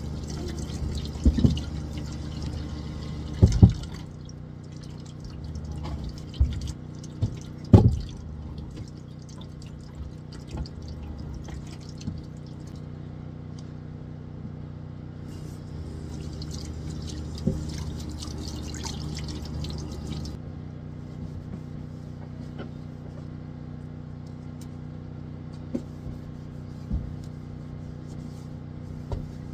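Water pouring and dripping as small partridge hearts are rinsed, coming in two spells, with a few sharp knocks, the loudest near 3.5 and 8 seconds in. A generator's steady hum runs underneath.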